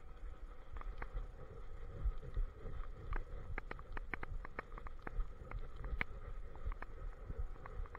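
Movement noise from a camera mounted on a walking German Shepherd: a low rumbling from the harness and body motion, with scattered sharp clicks that come thickest from about three to seven seconds in.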